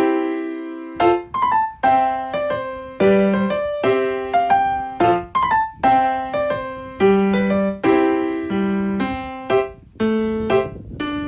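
Background music: a piano-like keyboard playing struck notes and chords in a repeating pattern, each note fading after it is struck, with a new phrase about every one to two seconds.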